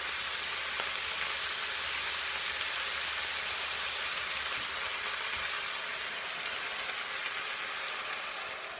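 A hot pan of frying chicken, vegetables and curry powder sizzles with a steady hiss as water goes in. The hiss eases off near the end.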